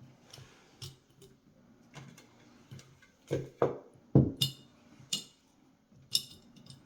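Scattered knocks and clinks of glass mason jars being handled as sliced lemon is put into them, a few of the taps ringing briefly; the loudest knock comes about four seconds in.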